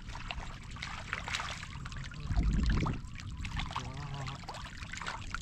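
Shallow muddy water splashing and sloshing as fish are grabbed by hand and thrash in the mud. About two and a half seconds in there is a louder low rumble lasting about half a second.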